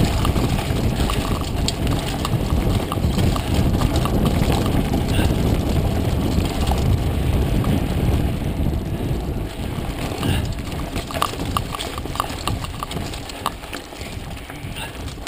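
Mountain bike riding fast down a dirt trail: a steady low rumble of wind and tyres on the dirt, with the bike clattering and rattling over bumps. Toward the end the rumble eases and the rattles come as separate clicks.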